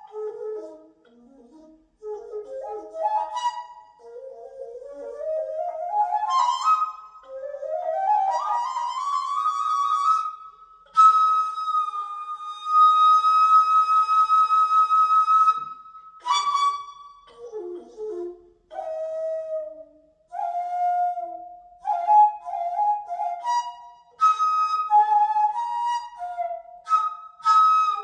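Daegeum, the Korean large bamboo transverse flute, playing a slow melody: phrases that slide upward in pitch, then one long high note held with vibrato from about eleven to fifteen seconds in, followed by shorter articulated notes.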